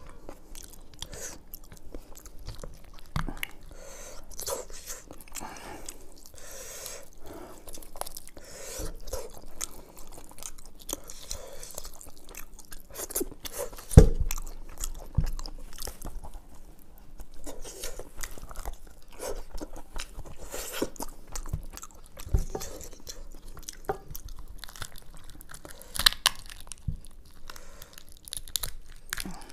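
Close-miked eating sounds of a person chewing and crunching curried mutton head meat, in an irregular run of small clicks and crackles. A single sharp knock about halfway through is the loudest sound.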